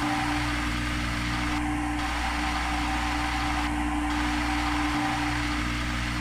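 Steady machine hum with a held mid-pitched tone over a low rumble: the simulated spindle sound of CNC milling software as the tool feeds into the block.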